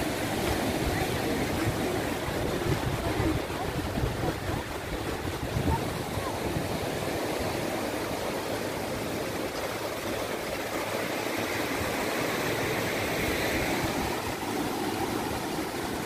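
Small waves breaking and washing up on a sandy beach, a steady rushing surf, with wind rumbling on the microphone, strongest in the first few seconds.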